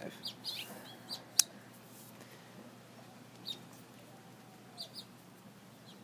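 Birds chirping in short, scattered calls, with one sharp click about a second and a half in from the folding knife being handled and flicked open.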